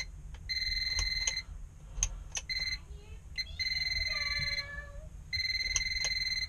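Non-contact AC voltage detector pen beeping with a steady high tone as it is held to the ceiling light socket. The tone comes in stretches of about a second, breaking off and starting again several times, as the pen senses live voltage at the fixture.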